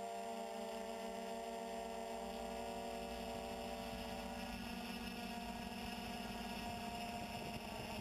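Quadcopter's electric motors and propellers humming steadily in flight, the pitch of the tones shifting about four and a half seconds in as the motor speeds change.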